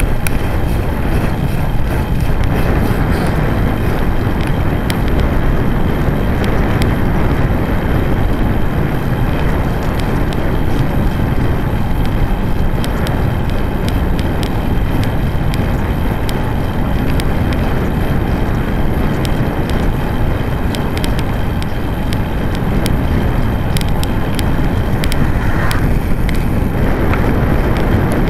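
Steady wind noise rushing over the microphone of a camera on a moving road bike, with road rumble from the ride and scattered light clicks.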